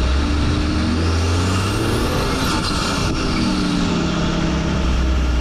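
Four-wheel-drive's engine running under load on a muddy dirt track, with tyres sloshing through a puddle and muddy water splashing up over the bonnet partway through.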